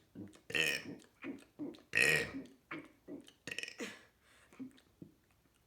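A person burping over and over in quick succession: about a dozen short burps at roughly two a second, the loudest about two seconds in, tailing off near the end.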